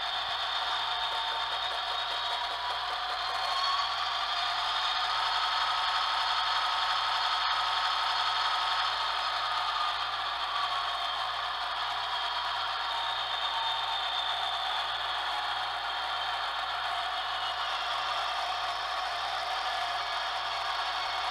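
Broadway Limited Paragon3 sound decoder in an N scale SD70ACe model locomotive playing its diesel engine sound through the model's tiny speaker, thin and trebly, with a rattling idle. The engine note rises about four seconds in and eases back down later on, with the locomotive standing still.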